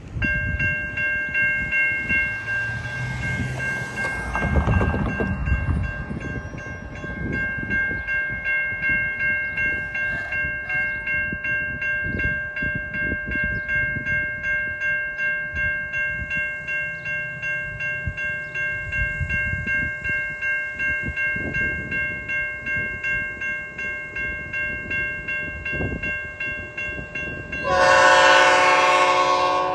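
Grade crossing warning bell ringing steadily, about two strikes a second. Near the end a train horn sounds, loud.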